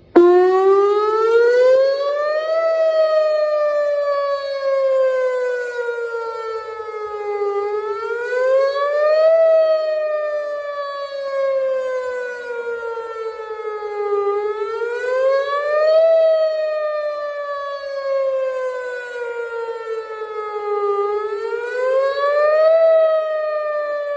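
Whelen WPS 2910 electronic outdoor warning siren sounding a scheduled test, heard up close and very loud. It cuts in suddenly at full strength, then a wailing tone climbs for about two and a half seconds and slides slowly back down, repeating roughly every seven seconds.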